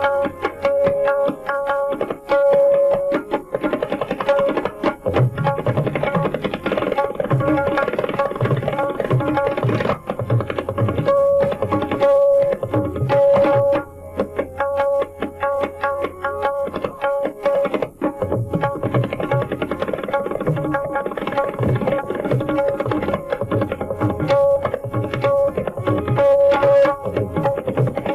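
Tabla solo: rapid, dense strokes on the treble drum ring out at a steady tuned pitch. Deep bass-drum strokes join in about five seconds in and continue alongside.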